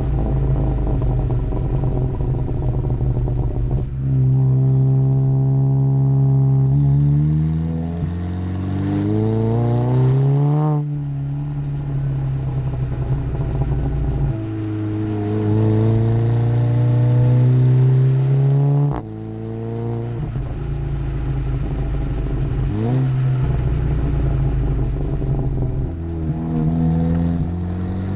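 Seat Leon Cupra's turbocharged 2.0-litre four-cylinder through a Milltek sport exhaust, pulling hard under acceleration. The pitch climbs steadily and drops abruptly at gearshifts, twice. There is a brief rev blip later, then another climb near the end.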